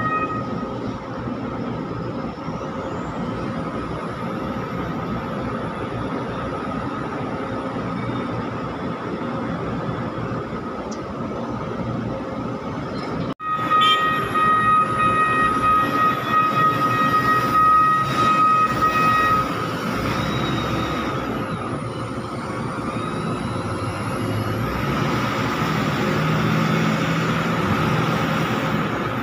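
SANY reach stacker's diesel engine running and its hydraulics working as it lifts a container, with a steady high whine over the engine noise. The sound drops out for an instant about 13 seconds in and is louder for several seconds after.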